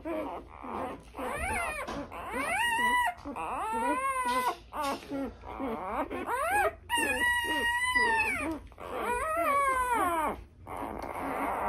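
Newborn Great Pyrenees puppies crying: a run of high, wavering squeals, one after another, some held for about a second, fading near the end.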